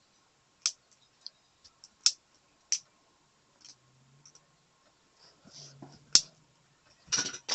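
Plastic Lego pieces of a homemade butterfly knife clicking and clacking as its handles are flipped open and shut: about six sharp clicks at uneven intervals.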